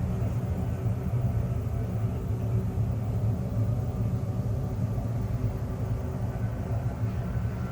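Steady low droning rumble with a few faint held tones above it: a 'sound of Saturn' space-ambience track, presented as the planet's radio emissions converted into audible sound.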